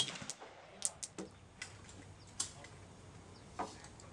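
A lull between AR-15 rifle shots: the last shot's report dies away right at the start, then only a few faint, sharp clicks are heard.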